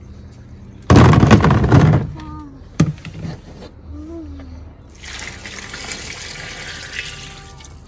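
Green mangoes tipped from a plastic basin into a plastic tub, a loud tumbling clatter about a second in. Then water poured from a plastic jug splashes steadily over the mangoes in the tub for the last three seconds.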